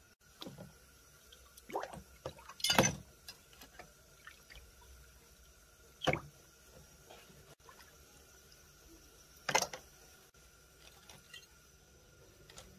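Tokarev TT-33 pistol parts being moved about with tweezers in a tray of liquid: a few separate splashes and drips, the loudest about three seconds in, with smaller ones near six and nine and a half seconds.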